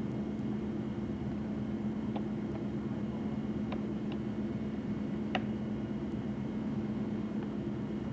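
A steady low hum, with a few faint clicks about two, four and five seconds in.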